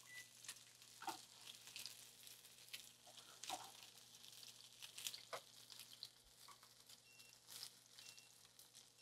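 Salmon fillets searing skin side down in avocado oil in a hot nonstick pan: a faint, steady sizzle with scattered small pops. Near the end come two faint short beeps about a second apart, a timer signalling that the rice is done.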